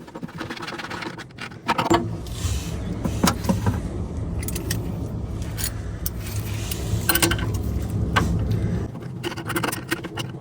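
Metal clinks and scrapes of hand tools working on boiler parts, over a steady low hum that starts about two seconds in and stops near the end.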